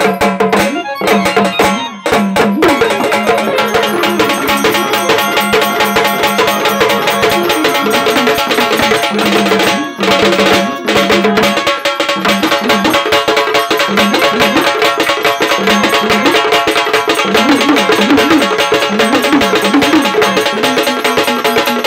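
Sambal, the paired Maharashtrian stick drum of gondhal music, played in a fast, dense run of stick strokes over steady held tones of a melody instrument. The music dips briefly about ten seconds in.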